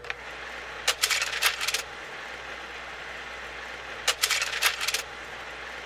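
Title-card sound effect: two bursts of rapid clicking crackle, about a second each, one near the start and one about three seconds later, over a steady low hum and hiss.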